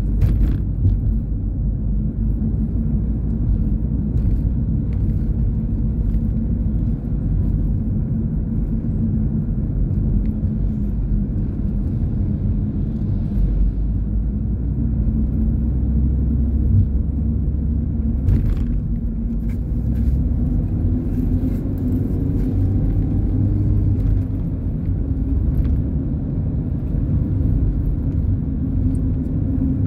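Car driving along a city street, heard from inside the cabin: a steady low engine and tyre rumble. A faint rising tone comes in about two-thirds of the way through.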